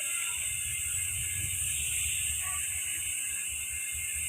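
Steady hiss, with a low, uneven rumble underneath.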